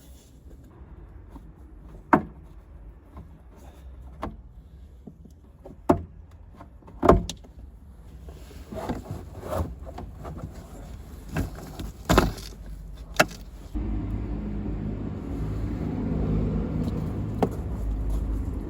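Scattered sharp knocks and clicks of work on a car's stripped interior, about nine over some thirteen seconds. Then a steady low rumble sets in.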